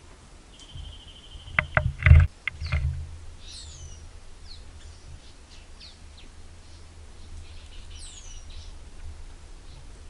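Wild birds calling in a swamp with short, sharply falling whistled notes, several times, over a steady background rumble. A high, even trill sounds briefly near the start, and a few loud knocks with a low thud come about two seconds in.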